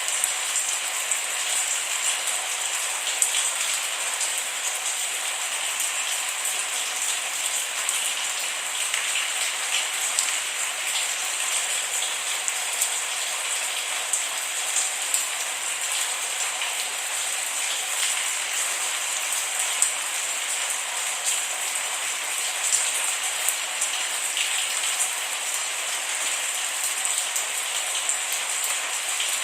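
Steady rain with a dense patter of small drops ticking on a surface, without thunder.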